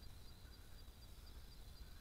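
Near silence with faint night insects: two steady high-pitched trills, one pulsing about four times a second, over a low rumble.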